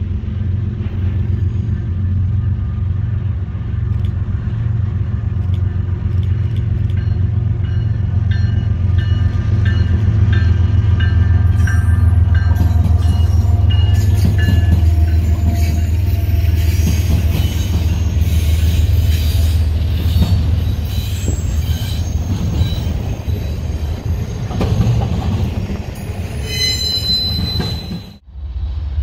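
Norfolk Southern diesel freight locomotive running past with a heavy low engine drone that builds as it approaches and eases once it has gone by. The double-stack container cars that follow roll past with steel wheels squealing on the rails, loudest near the end.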